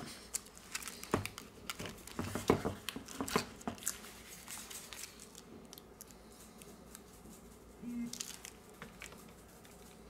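Clear plastic wrap around a smartphone crinkling and rustling as hands handle and turn the phone over, with small clicks and taps that die down after about four seconds. About eight seconds in comes a brief low buzz, the phone's vibration motor as it powers on.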